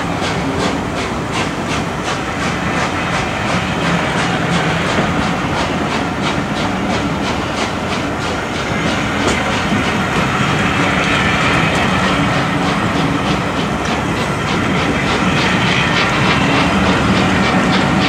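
A train of coaches behind the A1 class steam locomotive Tornado moving past, a steady rhythmic beat of about three to four a second over a continuous rumble, growing a little louder near the end.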